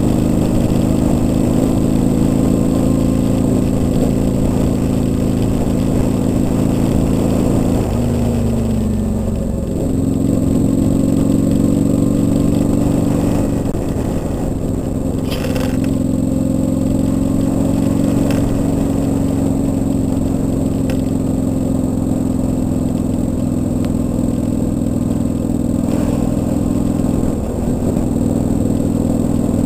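Kawasaki Vulcan 800's V-twin engine running as the motorcycle rides at street speed, picked up by a bike-mounted camera. The engine note dips about eight seconds in, then holds steady, with a few light knocks along the way.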